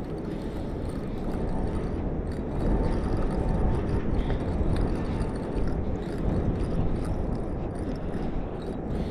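Wind buffeting the microphone: a fluctuating low rumble.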